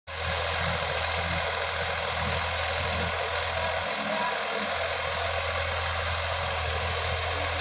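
Sonalika Supreme DI-50 RX tractor's diesel engine running steadily under load as it pulls a rotary tiller through soil, a continuous low drone with churning noise above it.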